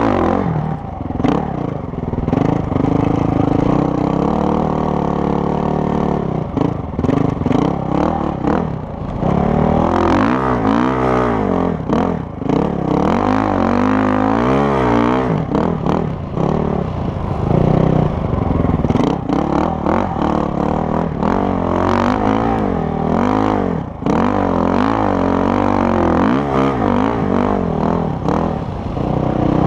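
Honda CRF450R dirt bike's single-cylinder four-stroke engine revving up and down over and over while riding on sand, with wind rushing over the microphone at times.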